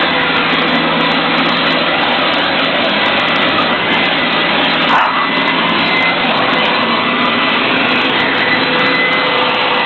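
Leaf blower running steadily: a loud, even rush of air with a steady whine in it, briefly louder about halfway through.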